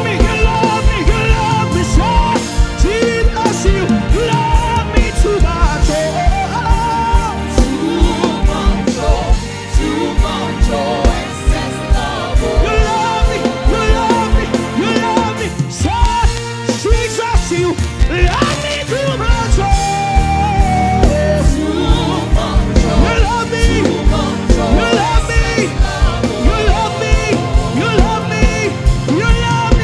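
Live gospel band music with a steady drum beat and a singing voice over it.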